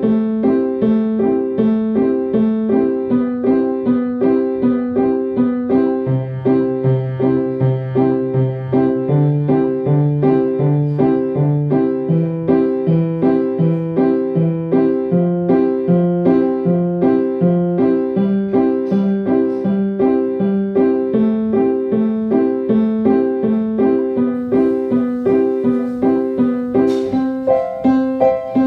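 Keyboard music: an electric-piano melody of quick, evenly spaced short notes, with a lower bass part joining about six seconds in.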